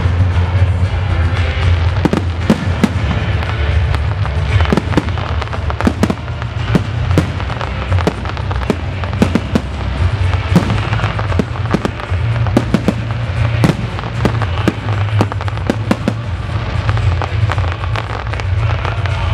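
Aerial firework shells bursting in quick succession, many sharp bangs and pops throughout, with music playing underneath.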